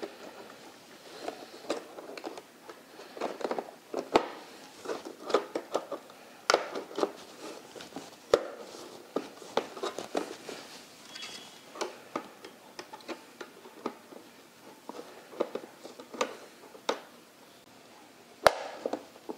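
Clear acrylic side-wall panels and plastic support pieces of a small turtle tank being handled and fitted into place: irregular clicks, taps and knocks of plastic on plastic, with one sharp click near the end.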